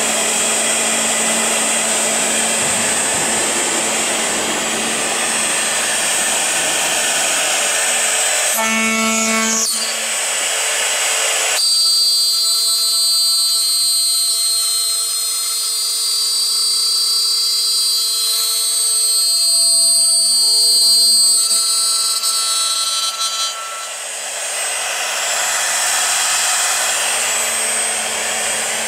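High-speed electric spindle of a CNC aluminium profile drilling and milling machine running as it drills and mills holes in an aluminium profile. A broad rushing machine noise gives way, about ten seconds in, to a steady high-pitched whine. The whine lasts about twelve seconds before the rushing noise returns.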